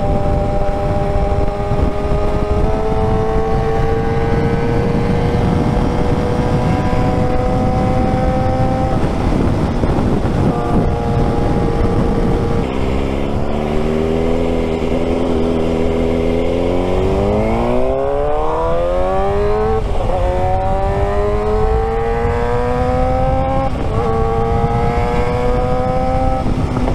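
Suzuki GSX-R 600's inline-four engine heard from the rider's seat: a steady cruising drone for the first half, then, from about halfway through, the bike accelerates, its pitch climbing steadily and dropping sharply at two upshifts before climbing again.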